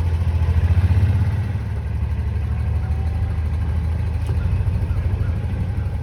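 A vehicle's engine running steadily with a low, even hum.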